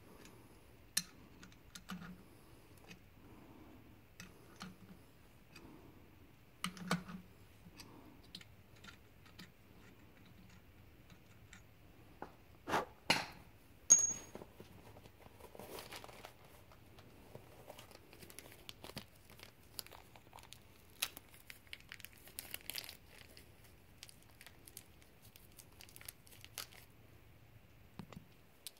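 Quiet, sparse handling noises of hand work on an engine block: scattered light clicks and rustling, with a few sharper knocks around the middle.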